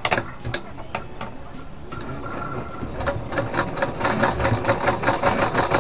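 A few clicks, then about three seconds in a sewing machine starts stitching with a fast, even clatter of about four strokes a second. It is sewing across the elastic to lock it into the waistband of a pant.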